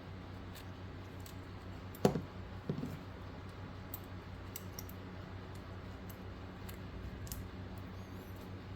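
Small clicks and taps of tools and tiny plastic parts being handled on an HO scale model locomotive's coupler box, with one sharper knock about two seconds in and a few smaller ones just after, over a low steady hum.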